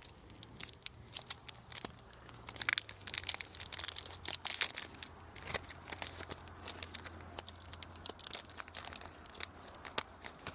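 A chocolate bar's wrapper being torn open and crinkled by hand: a run of irregular sharp crinkles and tears, busiest from about three to nine seconds in.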